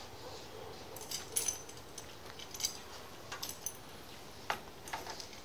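Light metallic clicks and clinks scattered through, as a tachometer's ring mounting bracket and hardware are handled and fitted against a diamond-plate gauge panel.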